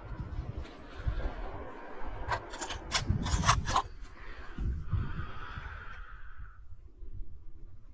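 Rubbing and rustling handling noise against the action camera's microphone, with a quick run of sharp clicks a little over two seconds in, then a short rasping hiss.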